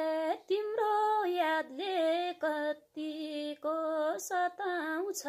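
A woman singing a Nepali folk song solo without accompaniment, in short phrases of held notes with sliding turns between them.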